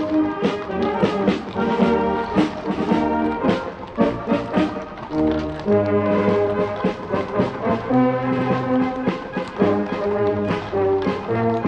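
Brass band music with a steady beat, held brass notes over a moving bass line.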